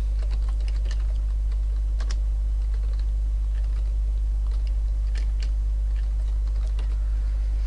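Computer keyboard being typed on, with irregular light key clicks, over a steady low hum.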